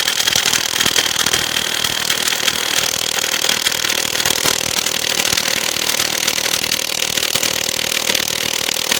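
Hyper Tough 12-volt 3/8-inch cordless impact wrench on speed 1, hammering in a loud, rapid, unbroken run against a lug nut torqued to 140. The nut does not break loose on this low setting.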